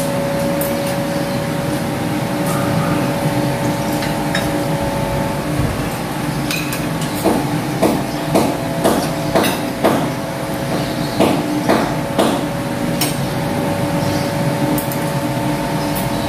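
Spoons and forks clinking and scraping on ceramic plates during a meal, over a steady mechanical hum. In the middle, a run of about ten sharp, ringing knocks, about two a second.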